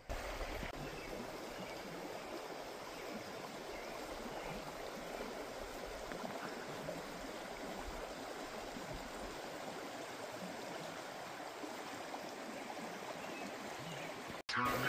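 A creek running, a steady rush of flowing water that cuts off abruptly near the end.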